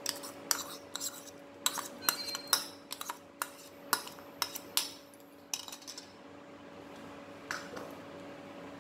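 Irregular light clinks and taps of a steel spoon and a small ceramic bowl against a pan as roasted vermicelli is tipped into milk, thinning out after about six seconds as stirring begins. A steady low hum runs underneath.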